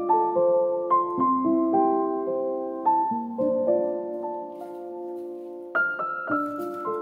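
Background piano music: a slow, gentle melody of struck notes over chords, with a louder chord about six seconds in.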